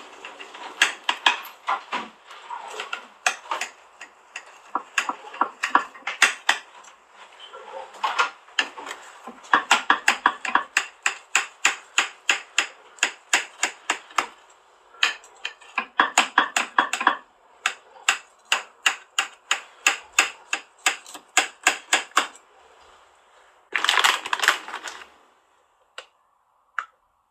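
A knife cutting through the crisp baked vermicelli topping of a dessert in a glass baking dish: quick runs of sharp clicks and crunches, several a second, as the blade is pressed and rocked through the crust and taps the glass. The strokes come in runs with short pauses and stop a few seconds before the end, followed by one short louder scrape.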